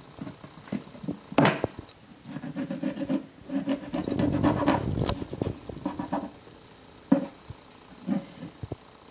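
Kitchen knife on a wooden cutting board while filleting horse mackerel: scattered taps and scraping as the blade works through the fish and meets the board. There is a sharp knock about one and a half seconds in and a busier stretch of cutting noise in the middle.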